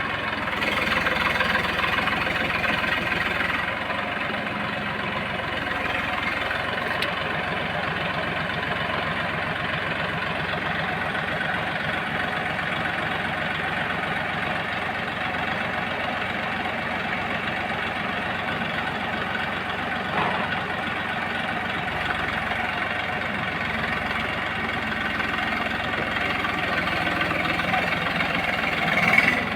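Massey Ferguson 1035 tractor's three-cylinder diesel engine running steadily while pulling a disc plough through hard ground.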